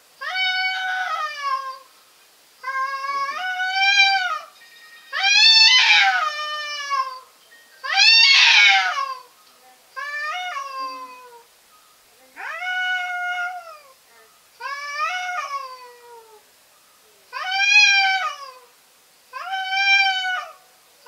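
Two domestic cats in a standoff yowling at each other: a run of about nine long, drawn-out threat yowls, each rising and then falling in pitch, a couple of them louder and harsher, with short gaps between.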